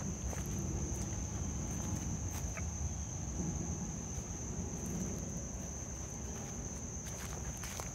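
Insects trilling in one steady, high-pitched tone, the woodland insect chorus of late summer, under low rumbling footsteps and handling noise through dry leaf litter, with a few light clicks of twigs or leaves.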